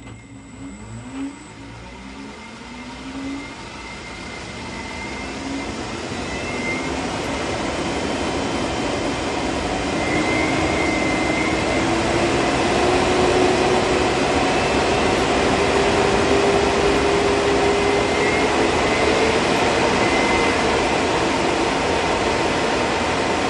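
Large 3D-printed electric ducted fan spinning up on 48 volts: a rising whine over a growing rush of air. It gets louder for about the first ten seconds, then holds at speed while the pitch keeps creeping upward.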